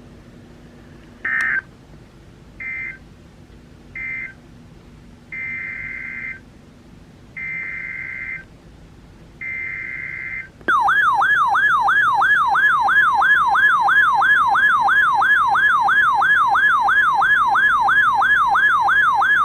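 Emergency Alert System SAME data bursts: three short buzzy end-of-message bursts, then three longer header bursts about two seconds apart, marking the end of one alert and the start of the next. About ten seconds in, a loud siren-like attention tone starts, warbling up and down about three times a second.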